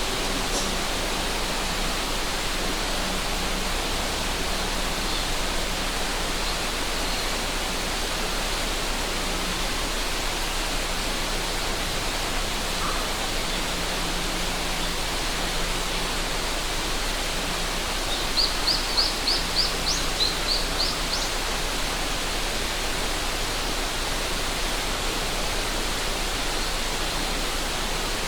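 A river rushing steadily. About two-thirds of the way through, a small bird gives a short run of quick, high chirps.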